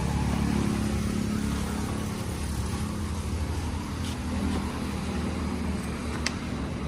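An engine idling steadily, a low even drone, with a single sharp click about six seconds in.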